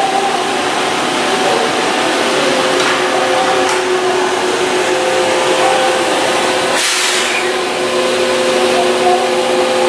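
Kobe Municipal Subway 1000-series train standing at the platform, its electrical equipment giving a steady hum and whine of several fixed tones. A short hiss comes about seven seconds in.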